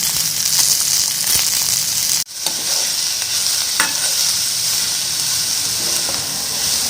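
Finely chopped onions sizzling in hot oil with mustard seeds and cumin in a kadhai, a steady frying hiss. The sound drops out briefly a little over two seconds in.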